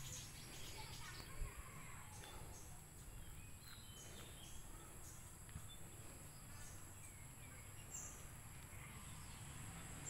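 Faint outdoor ambience: scattered short bird chirps over a steady high-pitched whine, with one soft knock about a second and a half in.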